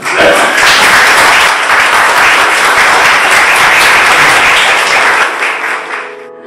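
Audience applauding, starting abruptly and dying away about five seconds in.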